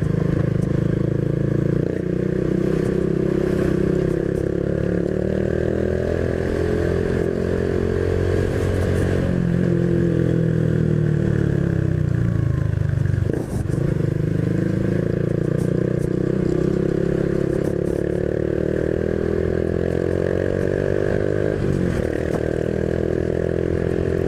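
Honda Biz 125's single-cylinder four-stroke engine running under way, its pitch rising and falling several times with the throttle. There is a brief drop in the engine sound about halfway through, and another smaller one near the end.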